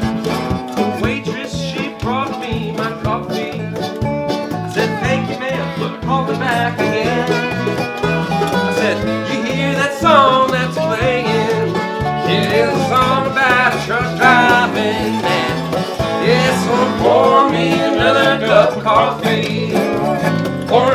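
Instrumental break of a country song in the key of A, played live on harmonica, resonator guitar, acoustic guitar and electric bass with a snare drum. The lead lines are full of bending, sliding notes over a steady strummed rhythm.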